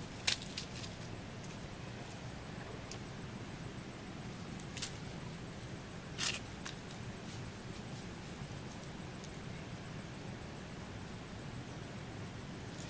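A bamboo stick pressing and tapping in dry leaf litter: a few short clicks and rustles, the loudest about six seconds in, over a steady low hum.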